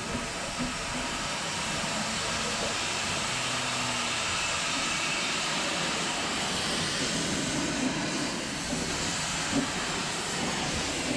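Narrow-gauge steam locomotive Sir Haydn hissing steam steadily, heard from the footplate, with a couple of faint knocks near the end.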